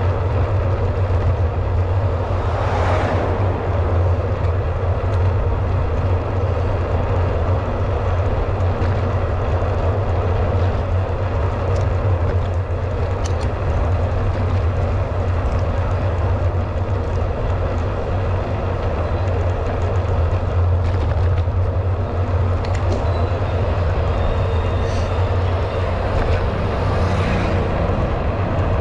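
Steady low wind rumble and rolling road noise on the microphone of a camera riding along on a moving bicycle. A couple of brief swells of brighter noise come about three seconds in and again near the end.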